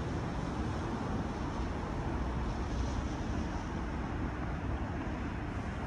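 Steady city traffic noise: a continuous low rumble of road vehicles, with no single event standing out.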